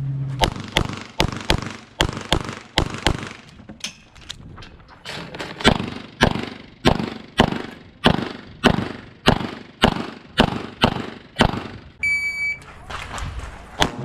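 Pistol fired in fast strings of shots, about two to three a second, with a short lull a few seconds in. Near the end an electronic shot-timer beep sounds, followed by another shot.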